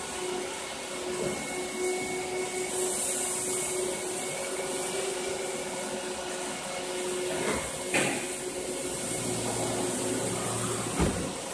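Automatic rollover car wash running: the gantry's motors and rotating brushes whir steadily over the car with a constant hum and a high hiss. A few short knocks come in the second half, the sharpest near the end.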